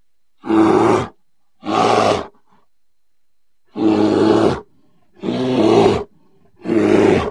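A bear roaring five times, each roar shorter than a second, with short pauses between them and a longer pause after the second.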